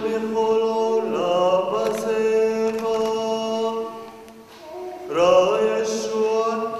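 Male liturgical chant: long phrases sung mostly on a held tone, one beginning about a second in and a second just after five seconds, with a short lull between.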